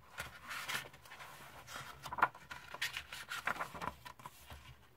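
Paperback picture book being opened and its pages turned by hand: a series of paper rustles and swishes.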